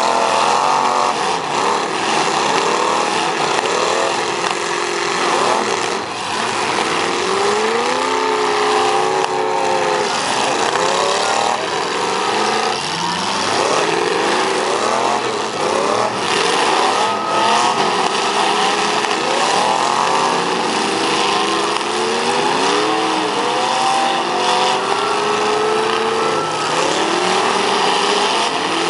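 Several demolition derby cars' engines revving hard and overlapping, their pitches rising and falling as the cars push and ram each other, with a few sharp bangs of cars colliding.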